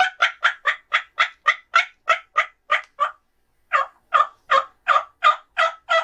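Turkey yelps: a long, loud run of evenly spaced yelps, about three a second, with a short break about three seconds in before a second run starts.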